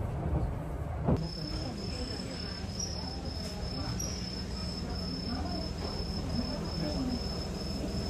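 Insect chirping in a steady high-pitched pulse, about three chirps a second, starting just after a sharp click about a second in, over a low rumble and faint voices.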